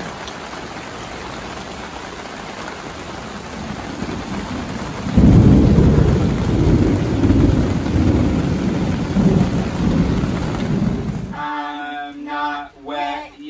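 Steady rain falling, heard from under a pop-up canopy; about five seconds in a long, low rumble of thunder comes in suddenly and rolls on for about six seconds. Near the end the rain cuts off and voices singing take over.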